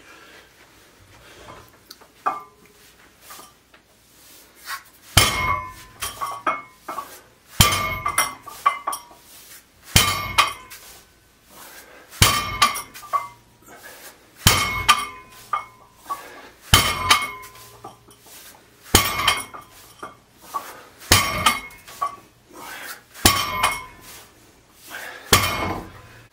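Loaded trap bar (hex bar) deadlift set: the weight plates clank and ring once with each rep, ten times, roughly every two seconds, starting about five seconds in.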